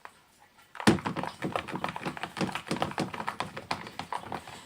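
Slime mixture being stirred in a bowl: a thunk about a second in, then a quick, irregular run of taps and clicks of the utensil against the bowl.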